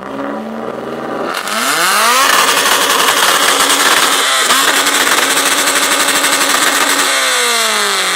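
A modified classic Mini's engine revved hard through a very loud exhaust for a decibel reading: it climbs from idle to high revs, holds there for about five seconds with one brief dip midway, then falls back toward idle near the end.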